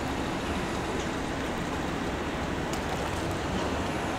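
Steady background rumble and hiss of distant road traffic and harbour water, with a few faint ticks.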